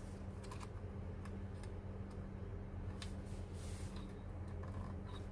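Faint, scattered small plastic clicks and taps as two ribbon connectors are fitted onto the key-panel board of a Nakajima AX-150 electronic typewriter, over a steady low hum.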